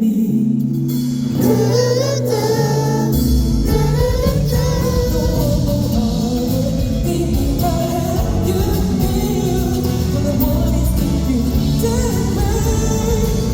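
Song performed by a singer over band accompaniment, with a wavering sung melody; bass and drums come in about three seconds in.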